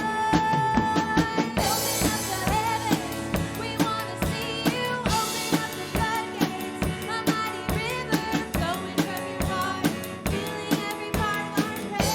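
Live praise band music, with a drum kit keeping a steady beat under sustained pitched instruments and a wavering melody line.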